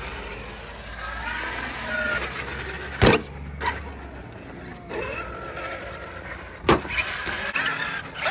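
Traxxas X-Maxx 8S RC monster truck's brushless electric motor whining, its pitch rising and falling as the truck speeds up and slows, with tyre noise on concrete. Two loud sharp thuds of the truck hitting the concrete come about three seconds in and again near seven seconds, the first the louder.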